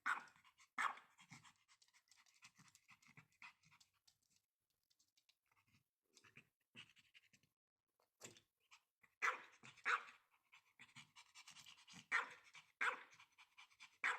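A Pomeranian panting, with scattered short sounds that come more often and louder in the second half.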